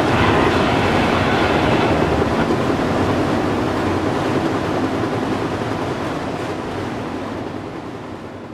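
Steady rolling noise of a moving freight train, heard from an open boxcar doorway, fading steadily over the last few seconds.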